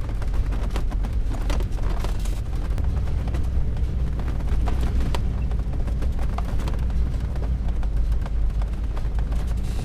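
Class C motorhome driving slowly over rough desert ground, heard from inside the cab: a steady low rumble with constant small rattles and clicks from loose things bouncing.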